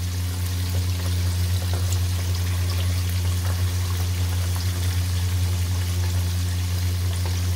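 Indian mackerel frying in hot oil in a pan: a steady sizzle with scattered small crackles, over a steady low hum.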